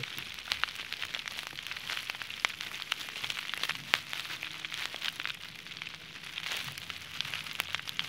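Faint irregular clicks and crackles over a steady hiss: handling sounds of a brush working liquid electrical tape onto a wire.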